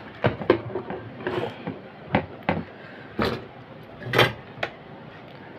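Clicks, knocks and rattles of an inverter circuit board with its wires and metal panel being handled, turned over and set down on a tabletop: about eight separate knocks, the loudest about four seconds in.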